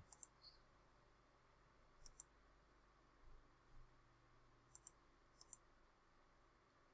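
Faint computer mouse clicks, coming in quick pairs: four double clicks spread over a few seconds.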